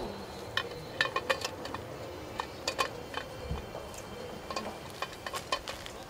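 Scattered small clicks and taps as hands handle the steel parts of a dynamic cone penetrometer at the anvil and sliding attachment, with a soft low thump about three and a half seconds in.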